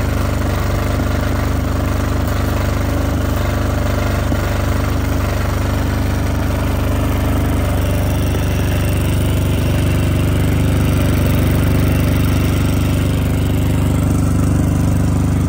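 Soundproofed single-cylinder diesel generator running steadily under the load of an arc welder, with the hiss and crackle of the welding arc over the engine drone.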